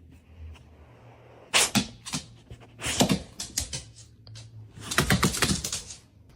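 Three clusters of quick, sharp clicks and taps, about a second and a half, three seconds and five seconds in, over a faint low hum.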